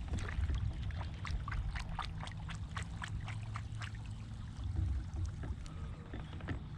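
Water dripping and trickling with many small irregular splashes at the side of a kayak, over a low steady rumble.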